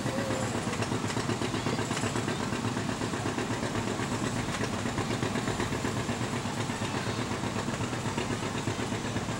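A vehicle engine idling steadily, a low rumble with a fast, uneven flutter.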